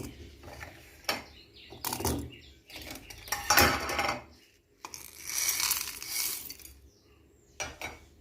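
Kitchen handling sounds: a series of separate clinks and knocks of dishes and a mixer-grinder jar as ingredients are put in, with a longer rustle about five to six seconds in.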